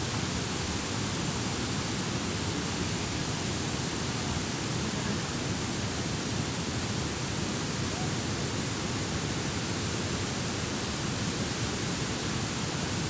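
Steady rush of water flowing through the dam's spillway, an even hiss with no letup.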